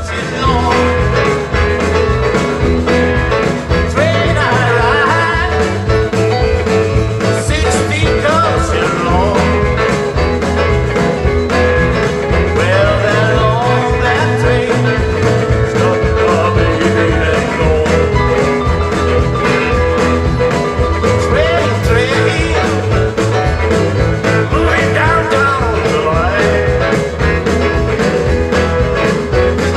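Live rautalanka band playing electric-guitar rock through the PA, with a steady drum beat under the melody.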